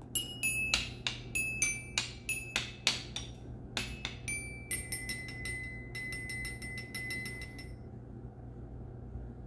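Toy glockenspiel with coloured metal bars struck with a mallet: about fourteen single ringing notes at changing pitches, then a quick roll on one bar that stops about eight seconds in.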